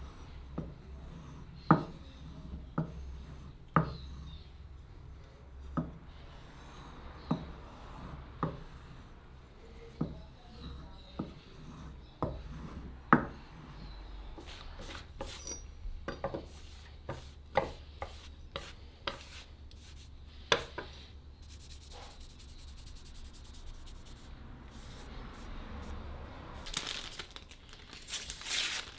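A cleaver blade being sharpened: sharp knocks at uneven intervals, roughly one a second and closer together midway, with faint scraping between them and a short hissing rub near the end.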